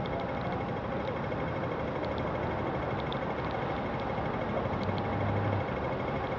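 Steady noise of a wet city street in rain: traffic and tyres on wet road, with a low hum that swells briefly about five seconds in as a vehicle passes.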